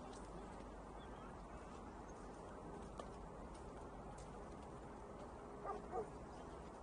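Steady low background noise of an outdoor waterfront, with a faint click about halfway and two short pitched calls close together near the end.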